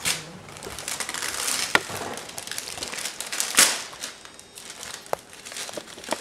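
Gift wrapping paper crinkling and tearing in irregular bursts as a toddler pulls at it to unwrap a present. The loudest rustles come right at the start and about three and a half seconds in, and a couple of short sharp clicks come in between.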